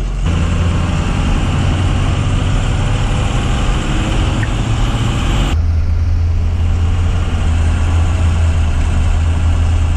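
Short school bus's engine running with road noise inside the cab as it drives: a steady low drone that changes abruptly a little past halfway.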